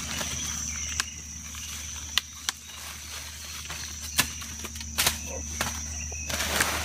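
Several sharp knocks at irregular intervals, over a steady thin high-pitched tone and a low hum.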